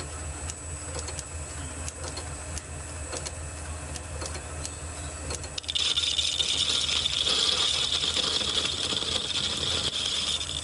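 Lorch lathe running with a steady hum and light rattle, a steel plate turning in its four-jaw chuck. About halfway through, the boring bar bites into the steel and a steady high-pitched cutting whine sets in and holds. The cut is not going cleanly: it feels like the tool is rubbing, which the machinist puts down to the tool geometry.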